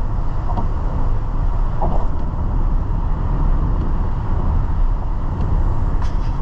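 Steady low rumble of road noise heard inside a car cabin at highway speed on a wet road, with a few faint clicks.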